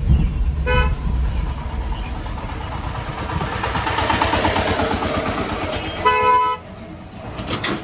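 Vehicle horn sounding twice in street traffic, a short toot about a second in and a longer blast near six seconds, over the steady rumble of engines and road noise heard from inside a car.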